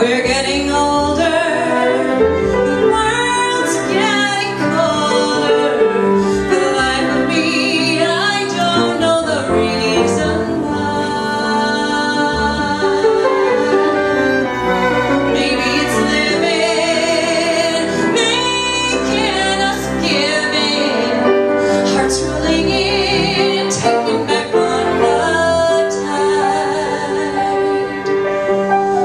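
Instrumental break on violin, cello, bass and piano, the violin carrying a melody with vibrato over sustained cello and bass notes and piano chords.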